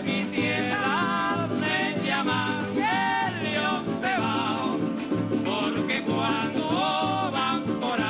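A Venezuelan golpe larense played live: several voices singing over strummed string instruments and a hand drum, with long held notes in the melody.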